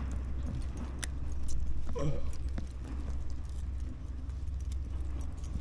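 Small clicks and rustles of hands unhooking a bass, the hook and lure rattling as the fish is handled, over a steady low rumble.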